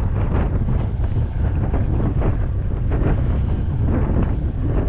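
Wind buffeting the microphone on a boat at sea: a loud, steady low rumble.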